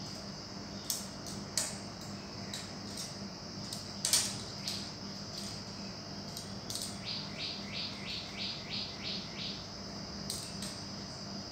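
Scattered sharp metallic clicks and taps as kittens paw and climb on a metal scaffold frame, over a steady high-pitched drone. A quick run of about eight short chirps comes in the second half.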